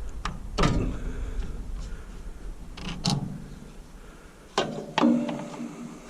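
Hand tools clicking and clanking on an old wood chipper's small engine as parts are taken off: a few separate sharp knocks, two close together near the end with a brief metallic ring.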